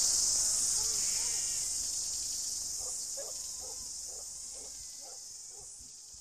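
A chorus of insects making a steady high-pitched buzz that fades out gradually. Faint short chirps repeat about twice a second in the second half.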